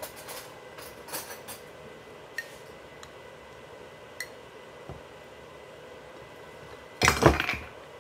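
Metal spoon clinking and scraping against a glass salsa jar as salsa is scooped out, a few light clinks spread out over several seconds. Near the end comes a louder, short cluster of knocks.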